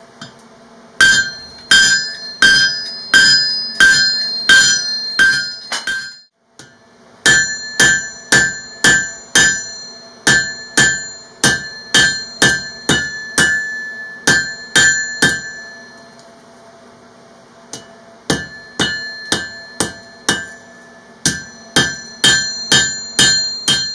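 Blacksmith's hammer striking hot steel on an anvil, drawing out the blade of a spike knife; each blow rings clearly. Three runs of steady blows, about two a second, with short pauses between them.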